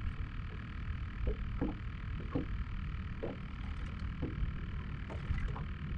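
Small-boat hull with water lapping and slapping against it, short irregular plops every half-second to second, over a steady low rumble of wind on the microphone.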